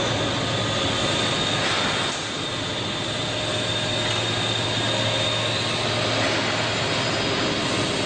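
A 1970 Williams & White 400-ton horizontal bulldozer press running under power: its 60 hp electric motor and Oilgear hydraulic pump give a steady hum and hiss with a thin, steady high tone. The level dips slightly about two seconds in.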